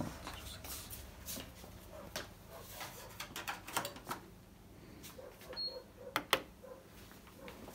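Scattered clicks and taps as a room door is handled and a key card goes into a wall switch panel whose touch buttons are pressed. A short high tone sounds about five and a half seconds in, and the sharpest clicks come just after it.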